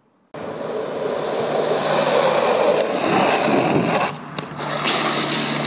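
Longboard wheels rolling and scraping over rough asphalt as the rider slides, a loud rushing noise that starts suddenly, dips briefly about four seconds in, then carries on with a steady low hum underneath.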